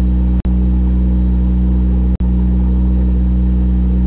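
Rally car engine running at a steady, unchanging speed, loud and constant in pitch. The sound cuts out abruptly for an instant twice.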